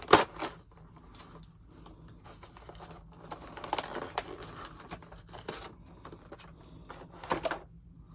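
Action-figure packaging being handled and opened: a few sharp clicks and taps of plastic and cardboard, with faint rustling between them.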